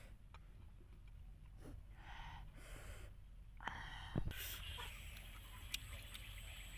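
A woman breathing hard in short hissing gasps through an open mouth, cooling it from the burn of chili while eating. A sharp click about four seconds in.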